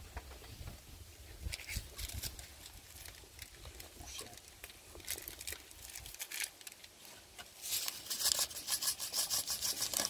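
Light taps and rubs of hands working around an aluminium cooking pot. From about two-thirds of the way in, a quick run of rasping crackle from a plastic seasoning sachet being torn and emptied into the pot.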